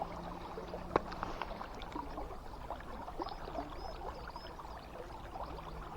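River water flowing and lapping steadily with small splashes and trickles, a sharp tick about a second in, and a few faint high chirps in the middle.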